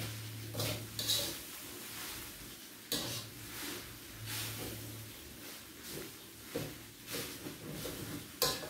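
Metal spatula scraping and clinking against a wok as fried rice with spinach is stirred and tossed, in irregular strokes about once or twice a second.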